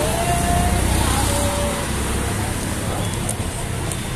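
Steady low rumble of street traffic passing a roadside food stall, with two short single tones in the first two seconds.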